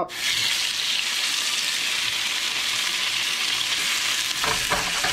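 Thin mangrove snapper fillets sizzling in smoking-hot olive oil in a nonstick skillet. The sizzle starts suddenly as the fish hits the oil and keeps going at a steady level.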